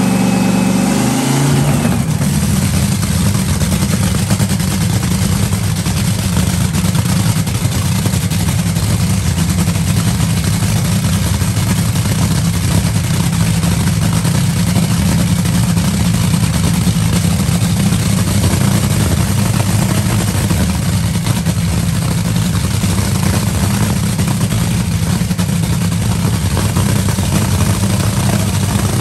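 Top Fuel dragster's supercharged nitro-burning V8 running loud and steady in a pit warm-up. A higher rising whine stops about two seconds in, and the engine runs on steadily after it.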